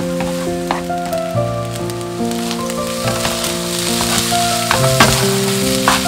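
Egg fried rice with garlic sizzling in a frying pan as it is stirred and turned with a spatula, with a few sharp knocks of the spatula against the pan, the loudest about five seconds in. Soft background music with held notes plays underneath.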